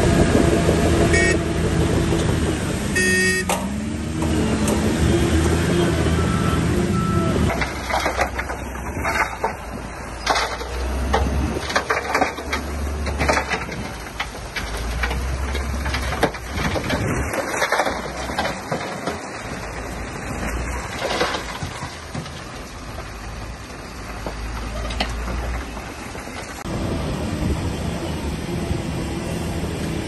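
Diesel engine of heavy construction machinery running steadily, then a long stretch of irregular clattering knocks over a low rumble, then the steady engine note again near the end.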